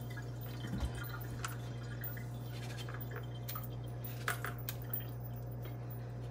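A fork pricking pieces of raw, wet pumpkin: scattered light clicks and wet taps, over a steady low hum.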